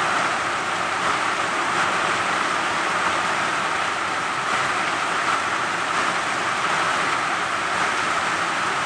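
Steady rain, an even hiss that holds at the same level without pauses.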